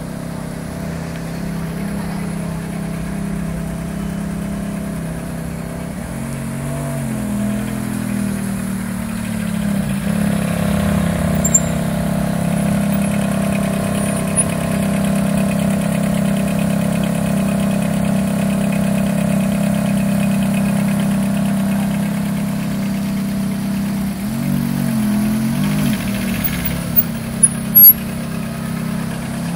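Ferrari F430 Spider's V8 idling steadily, with two brief small rises in engine speed, about seven seconds in and again near twenty-five seconds. A couple of sharp knocks sound near the end.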